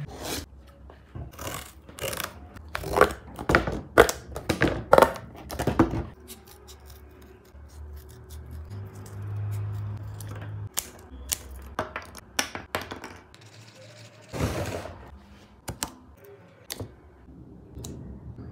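Scissors cutting cardboard: a run of sharp snips, loudest in the first six seconds, followed by quieter scattered clicks and the handling of cardboard pieces.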